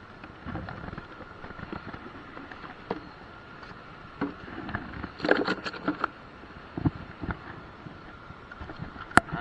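Handling noises from stowing the catch in an ice box: scattered knocks, rustles and clicks, with a busy cluster about halfway through and one sharp click near the end.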